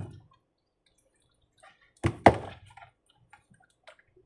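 Two sharp knocks of kitchenware close together about two seconds in, with a few faint clinks before and after.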